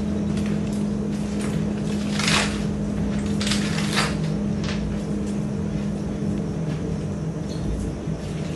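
Copper magnet wire being pulled and unwound by hand off the coil of a small microwave fan motor, giving irregular scratchy rustles, the strongest about two, three and a half and four seconds in. A steady low hum runs underneath and fades out near the end.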